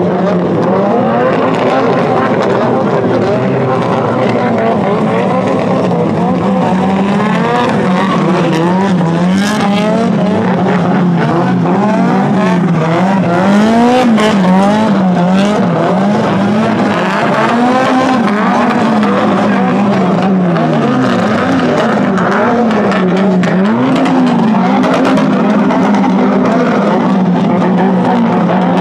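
Drift car engine revving up and down over and over, the pitch rising and falling every second or so as the throttle is worked, with tyres squealing and skidding.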